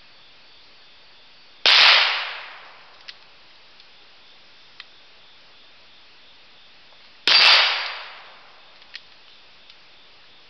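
Two shots from a High Standard Longhorn Convertible .22 revolver with a 9.5-inch barrel, about five and a half seconds apart. Each starts sharply and dies away over about a second. A few faint clicks come between them.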